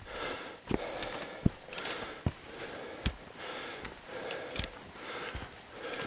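A hiker's breathing close to the microphone, with footsteps on a dirt forest trail thudding about every three quarters of a second.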